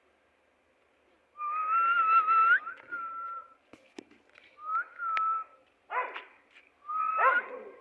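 Puppy whining: a long, high, wavering whine, a shorter one, then a few short falling whimpers near the end.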